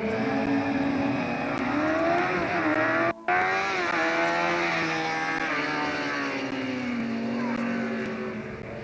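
Competition car engine revving hard on a timed stage, its pitch rising and dipping with throttle and gear changes. The sound cuts out for a moment about three seconds in, then the engine note falls gradually as the car draws away.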